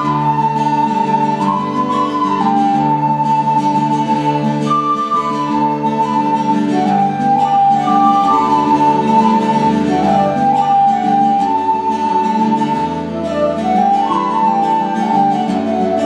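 Flute playing a slow melody of held notes that step up and down, over acoustic guitar accompaniment, in Irish traditional style.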